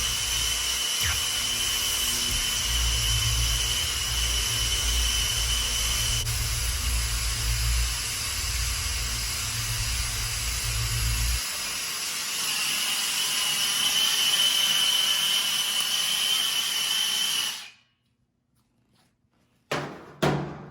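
Torch flame hissing steadily with a thin whistle while heating a copper refrigerant line joint to unsweat it. A low roar under the hiss drops away about halfway through, and the sound cuts off near the end.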